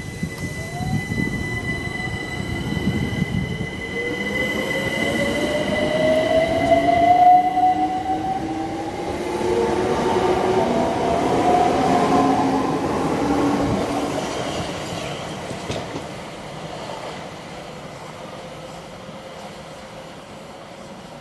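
London Overground electric multiple unit pulling away and accelerating past: its traction motors whine in several tones that rise in pitch, over wheel and rail rumble, with a thin steady high tone in the first half. It is loudest midway, then fades as the train draws away.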